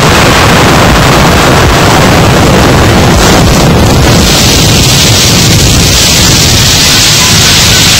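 Explosion blowing up illegal mining equipment: a continuous loud roar that starts abruptly and stays at full level throughout, overloading the recording.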